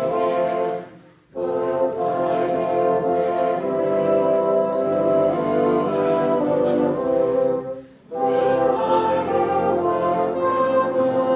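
Bassoon ensemble with contrabassoon playing a Christmas carol in sustained chords, stopping briefly between phrases about a second in and again just before eight seconds in.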